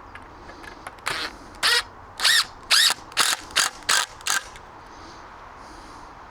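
Cordless drill driving a screw into the timber of a frame in about seven short bursts, the motor pulsing on and off over a few seconds.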